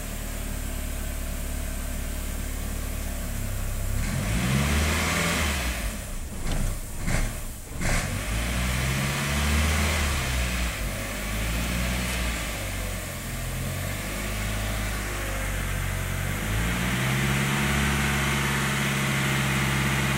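1999 VW Passat's 1.8-litre turbo four-cylinder engine idling, then revved up about four seconds in; the revs dip and stumble a few times, waver, and hold steadier near the end. The surging and stumbling under steady throttle are the running fault traced to a failing mass air flow sensor.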